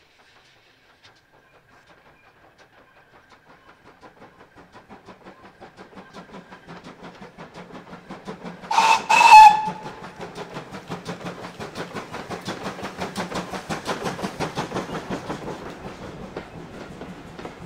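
Ex-GWR 0-6-2T steam tank locomotive approaching with its train, the rhythmic beats of its exhaust growing steadily louder. About halfway through it gives two short blasts on its steam whistle, the loudest sound, and then its coaches roll past, easing off slightly near the end.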